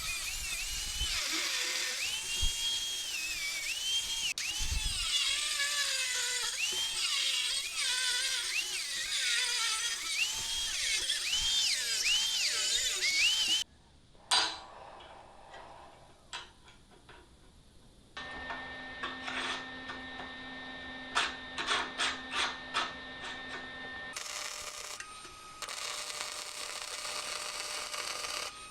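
Handheld electric drill running in spurts, its motor whine rising and falling as the trigger is worked, then cutting off suddenly about halfway through. Quieter clicks, a steady hum and a few sharp ticks follow.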